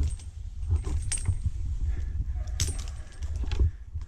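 Metal climbing hardware clinking and jingling: a few short sharp clicks and rattles over a steady low rumble.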